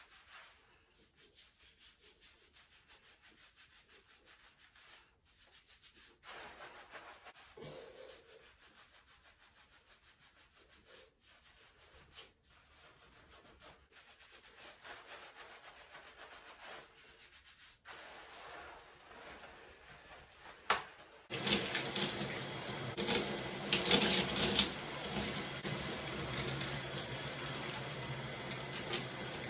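Fingertips scrubbing shampoo lather through wet curly hair, a faint squishy rubbing. About two-thirds of the way through, the shower spray comes on suddenly and runs steadily, much louder, as the lather is rinsed out.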